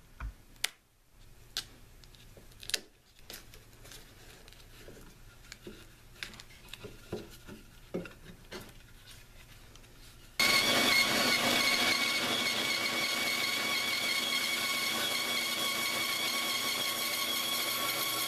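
About ten seconds of faint handling noise, scattered clicks and rustles of duct tape and boards. Then a bandsaw with a 1/4-inch blade comes in abruptly, loud and steady, cutting slowly through a taped block of birch and walnut about 2 inches thick.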